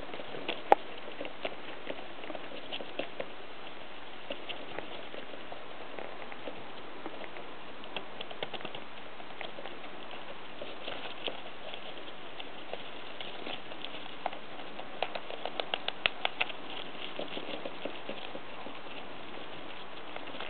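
Small pet rodent gnawing and scrabbling at the end of a cardboard clingfilm tube in wood shavings, trying to reach a peanut inside: a scattered run of small scratchy clicks over a steady hiss, with a quick flurry of louder clicks about three-quarters of the way through.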